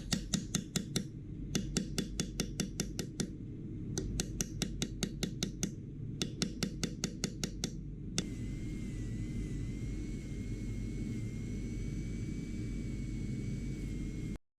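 Rapid light taps of a jeweller's tool on a ring, about eight a second in four short bursts, then a small rotary tool starts and runs with a steady high whine for the last six seconds.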